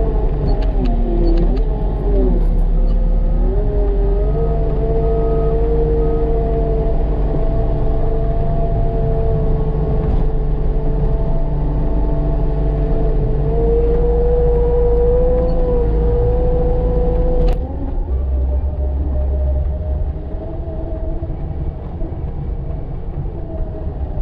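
Skid steer's diesel engine running under load while plowing snow, with a steady whine whose pitch dips and rises a few times as the revs change. About two-thirds of the way through, the sound changes abruptly to a rougher, lower engine running.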